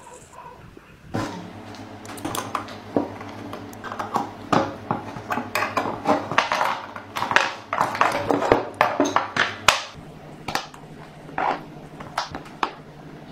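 Metal parts and tools clinking and clanking in quick, irregular knocks over a steady low hum that starts about a second in. The clatter is busiest in the middle and thins out near the end.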